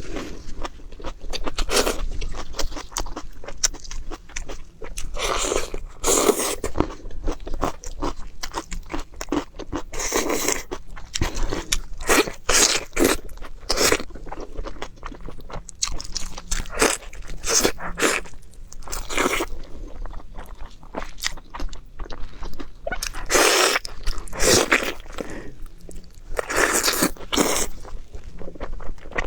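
Close-up eating sounds: crunchy bites and chewing, a run of crisp crunches with bigger bites every few seconds.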